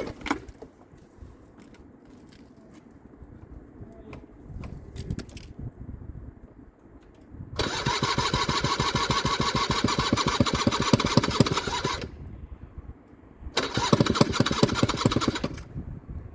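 Hyosung Sense scooter's 50 cc two-stroke engine being started: two loud bursts of rapid, even pulsing, the first about four seconds long and the second about two, each cutting off abruptly.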